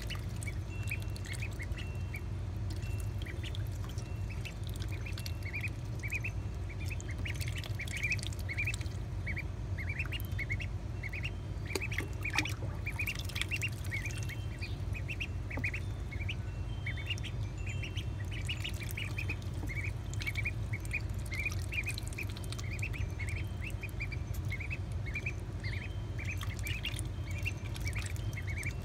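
Two-week-old magpie ducklings peeping steadily, with short high peeps several times a second, and a few small splashes and clicks as they swim and peck at mealworms floating in the water.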